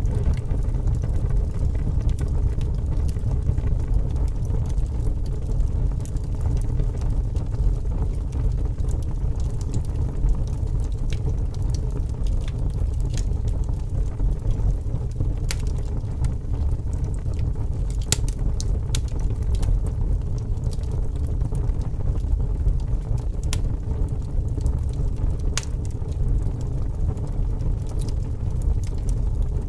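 Wood fire burning in a fireplace: a steady low roar with sharp crackles and pops now and then.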